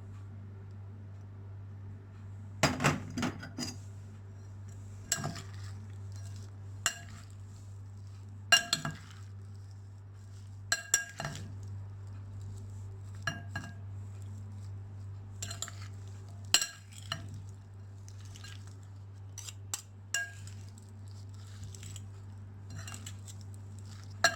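Salad being tossed with utensils in a bowl after the dressing is poured on: irregular clinks and knocks of the utensils against the bowl, a few every couple of seconds. A steady low hum runs underneath.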